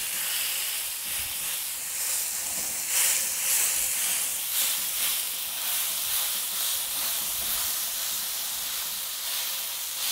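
Raw beef burger patties sizzling on a very hot cast iron griddle plate in bacon fat as they are laid down one after another: a steady hissing sizzle with small surges.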